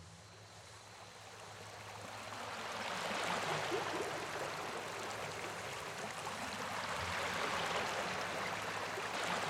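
Surf washing up a sandy beach: a hissing wash of breaking foam that fades in and swells twice, about three seconds in and again near eight seconds.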